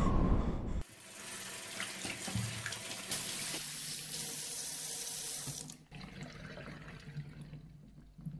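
A loud rush of breaking surf cuts off under a second in. Then a tap runs steadily into a washbasin over hands being washed, and stops about six seconds in, leaving faint small clicks and drips.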